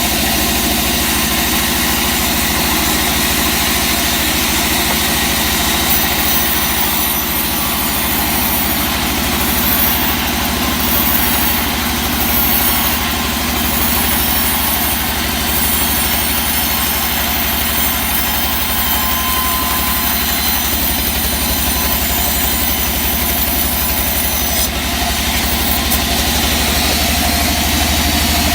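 Sawmill machinery running with a steady engine drone. A higher hiss joins in from about six seconds in and stops abruptly near the end.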